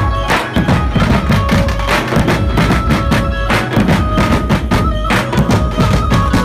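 Dhumal band playing a fast tune: dense, loud drum strokes under a held melody line.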